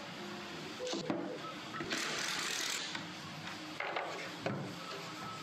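Workshop handling sounds: a few sharp clicks and knocks of hard plastic parts and tools, with a short hiss about two seconds in.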